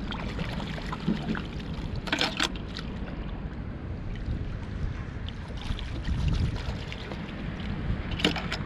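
A hand splashing and digging in shallow seawater for shellfish, over a steady low rush of water and wind. A short sharp splash comes about two seconds in, and near the end a brief clatter as the catch is dropped into a plastic bucket.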